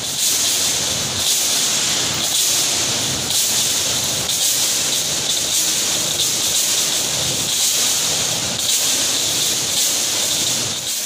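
A loud, steady, high-pitched hiss with a faint irregular crackle.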